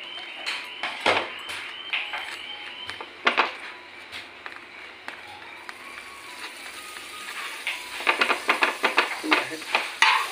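A metal spoon scraping and tapping on a naan and a flat tawa as butter is spread over the bread, with a few separate clicks and then a quick run of scraping strokes near the end.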